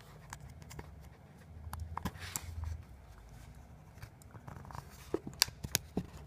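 Small clicks and scraping as a pry tool works around the edge of an iPhone 6 screen to lift it from the frame, with a run of sharper clicks near the end as the clips let go.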